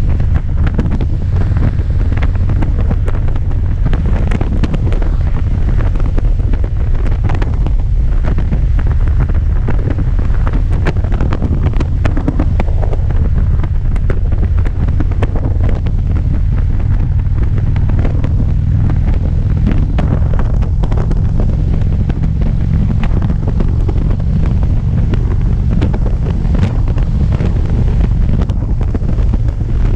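Loud wind buffeting on the microphone over the steady low drone of a touring motorcycle's engine cruising at highway speed.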